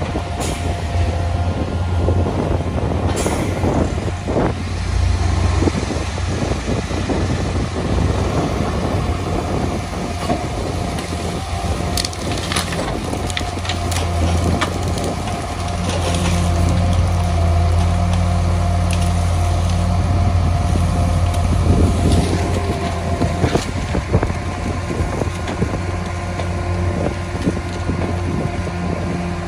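Rear-loader garbage truck's hydraulic compactor crushing branches and palm fronds in the hopper, with wood cracking and snapping every so often over the steady drone of the truck and skid-steer loader engines.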